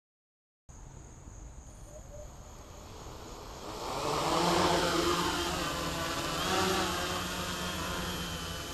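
Quadcopter's four NTM 900kv brushless motors with 10x4.5 propellers spinning up and lifting off: a buzzing whine that starts faintly under a second in, grows louder about three seconds in, and wavers in pitch as the throttle changes.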